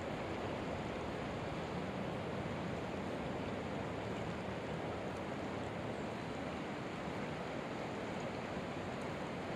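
Steady rush of a flowing river's current mixed with wind, an even noise with no distinct events.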